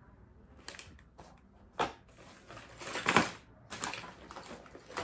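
Scattered light clicks and rustles from handling things on a tabletop, the loudest a longer rustle about three seconds in.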